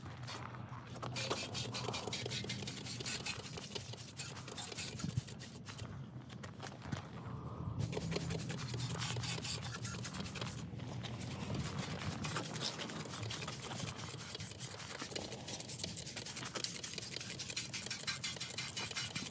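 Pressure washer spray blasting and spattering on a Honda welder generator's metal housing and frame, over a steady low hum from the pressure washer. The spray cuts out briefly about half a second in, again for about two seconds from six seconds in, and once more for a moment near eleven seconds.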